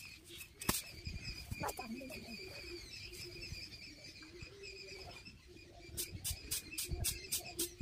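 Pigeon cooing softly, a low wavering coo under a steady high whine, with a quick run of sharp clicks in the last two seconds.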